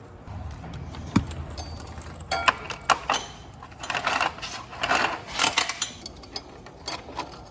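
Metal roller drive chain clinking and rattling in short, irregular clicks as it is handled and fitted on the quad's sprockets.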